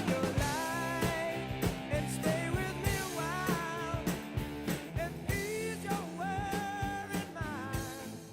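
Rock music with drums and a melody line.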